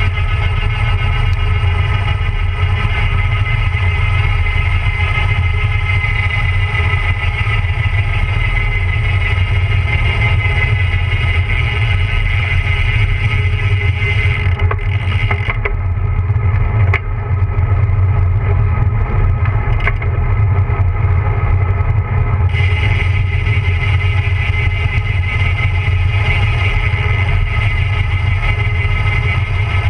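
Wind rushing over the microphone of a bike-mounted camera, with tyre and road noise from a road bicycle descending at speed. A steady high whir runs over the rumble and drops away for about eight seconds midway, then returns.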